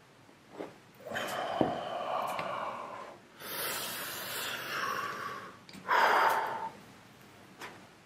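A man's long, noisy breaths of effort, three in a row, as he strains at a seized screw with a hand tool, with a sharp click about one and a half seconds in.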